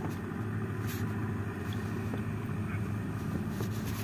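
Steady low background hum and rumble, with a faint click about a second in.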